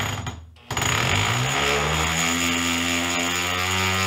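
Electric drill driving a long flexible drill bit: a short burst, then about a second in the motor spins up with a rising whine that levels off into a steady run at full speed. It turns with almost no load, a sign that the bit has come off the end of the drill.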